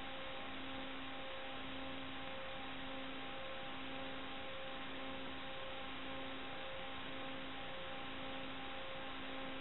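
Steady hiss with a low, buzzy electronic tone that pulses on and off about once a second.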